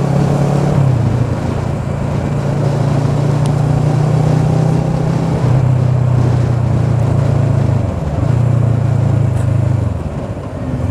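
Motorcycle engine running under way in city traffic, with its note stepping down in pitch a few times as the rider eases off, over a steady rush of wind and road noise. The sound dips briefly near the end.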